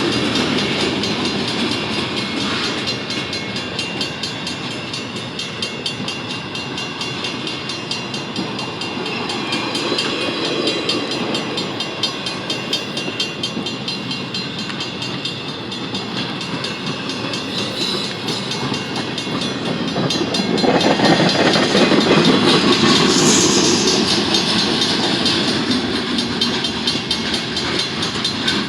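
Freight cars of a manifest train rolling past on the rails with a steady clatter of steel wheels. The sound grows louder for a few seconds about two-thirds of the way through.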